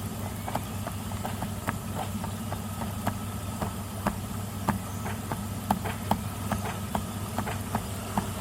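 Steady low hum of a running water or air pump, with short, irregular small clicks and drips of water, a few each second.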